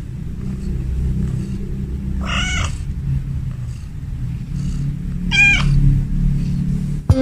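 A cat meowing twice, each meow short with a bending pitch, about two and five seconds in, over a steady low rumble.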